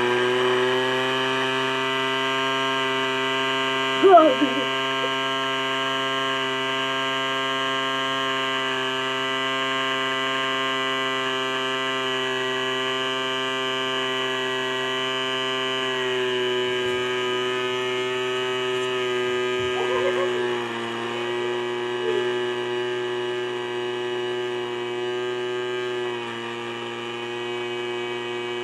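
Small electric flour mill running with a steady motor hum. About four seconds in there is a brief louder burst with falling pitches. The pitch dips slightly around twenty seconds in and again near the end.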